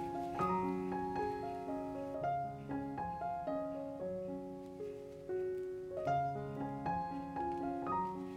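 Background piano music: a calm melody of single notes over held low bass notes.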